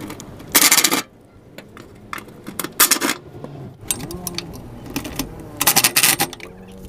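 Socket ratchet clicking in three quick bursts as a fuel tank mounting bolt is undone.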